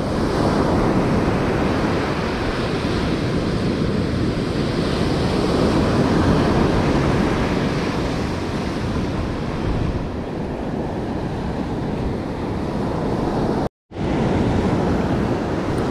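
Ocean surf breaking and washing up a sandy beach in a continuous wash, with wind rumbling on the microphone. The sound drops out for a split second near the end.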